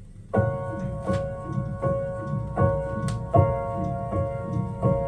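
Piano chords opening a song played from a vinyl record, starting about a third of a second in after a short quiet gap between tracks and repeating at an even pace, roughly one every three-quarters of a second.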